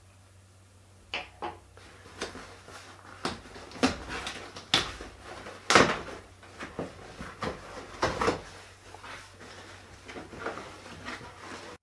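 Corrugated cardboard shipping box being opened by hand: flaps pulled up and folded back, with a string of irregular cardboard scrapes, rustles and knocks, the loudest about six seconds in.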